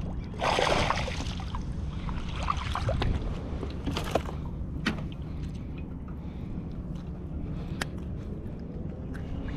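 Water sloshing against a kayak hull, with steady wind rumble on the action camera's microphone. There is a short splash about half a second in as a small fish goes back into the water, and a few sharp clicks of gear being handled later on.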